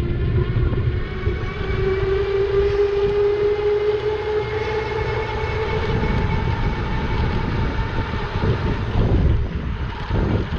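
A 1500 W e-bike's electric motor whining under power, the whine rising slightly in pitch over the first few seconds, then fading away about seven seconds in. Wind buffets the microphone throughout.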